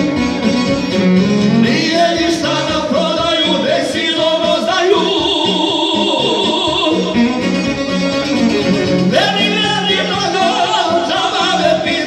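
Two men singing a Bosnian folk (izvorna) song into microphones, accompanied by a bowed violin and a plucked long-necked lute.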